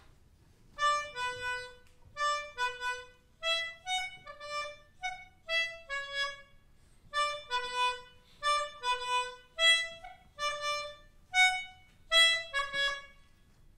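Melodica played note by note: a halting tune of short, separate reedy notes in a narrow middle range, starting about a second in and running in small groups with brief gaps.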